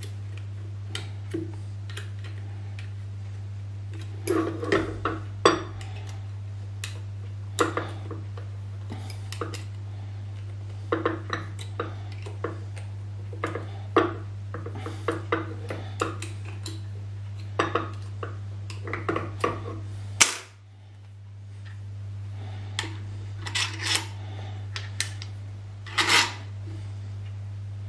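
Metal parts and tools being handled on a milling machine power feed bracket: scattered clicks, taps and clinks at an uneven pace, over a steady low hum. A sharp click about twenty seconds in briefly cuts the hum before it fades back.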